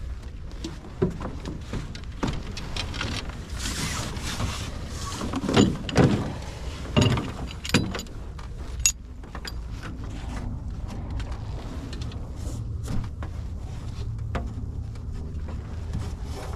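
Clunks, knocks and scrapes of gear and the paddle being handled in a small boat, with several heavy thumps in the middle. A steady low rumble follows in the latter part.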